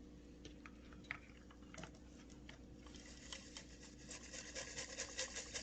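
Microwave running with popcorn kernels popping inside a glass popper. A few scattered pops early on quicken to a fast, dense run about three to four seconds in.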